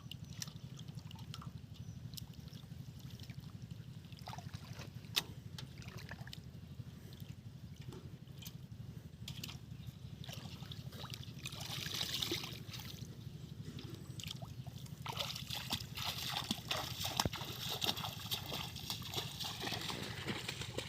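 Shallow water sloshing and trickling, with scattered clicks and a steady low hum underneath. The splashing grows louder about twelve seconds in and again from about fifteen seconds in.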